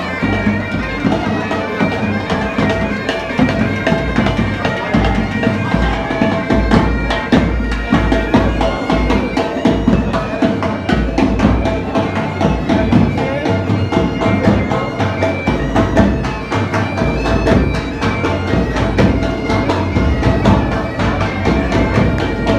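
A pipe band playing: bagpipes over their steady drones, with drums beating along.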